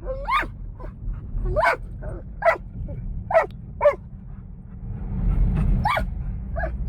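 Dog barking repeatedly inside a moving van: about eight sharp barks, with a pause of over a second after the middle, over the van's steady low road rumble.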